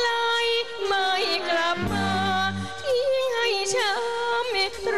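A Thai big band with saxophones and a bass playing a slow luk krung song. A lead melody wavers and bends with vibrato over long, held low notes.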